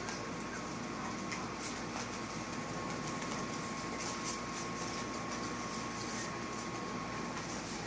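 Steady background hum and hiss with a thin, steady high tone, and faint light ticks and rustles now and then.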